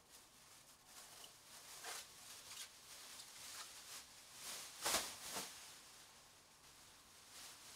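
Faint scattered clicks and rustles, with one louder knock about five seconds in.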